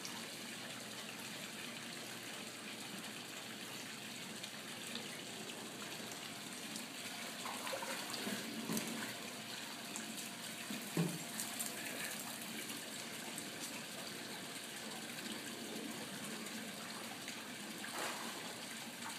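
Swimming pool water splashing and lapping as a man wades through it and lifts a dog out onto the edge, over a steady wash of running water, with a few short louder splashes about eight, eleven and eighteen seconds in.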